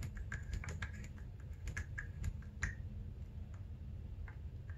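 Dirt bike front fork compression damping adjuster (clicker) being turned with a screwdriver, its detents clicking several times a second for the first few seconds, then a few slower, fainter clicks.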